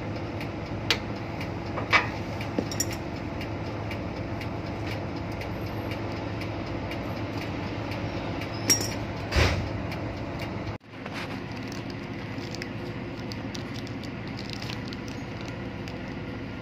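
Steady low machinery hum, with a few sharp clicks and taps from a screwdriver working on the indicator's wiring terminals, the loudest about two seconds in and about nine seconds in. The sound cuts out for an instant about eleven seconds in.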